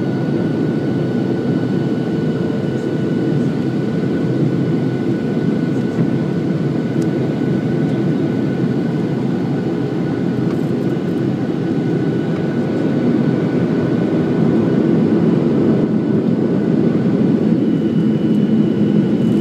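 Steady cabin roar of a Boeing 737-700 in flight, the sound of its CFM56-7B turbofans and the rushing airflow, with a thin steady whine over it. It grows slightly louder in the last few seconds, and a second, higher whine joins near the end.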